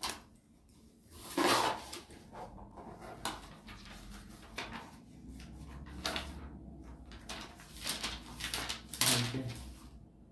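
Paper pages of a LEGO instruction booklet being turned and handled, giving several short rustles, with a brief murmur near the end.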